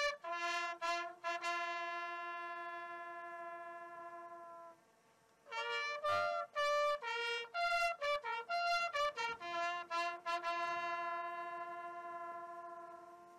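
A lone bugle call sounding over a military memorial: short notes leading into long held notes that slowly die away, in two phrases with a brief break about five seconds in.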